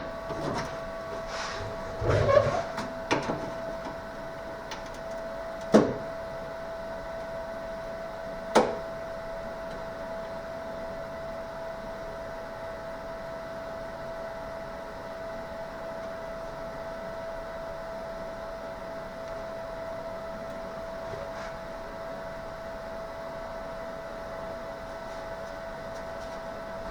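Steady machine hum holding one clear tone, with a few sharp metallic knocks and clanks in the first part.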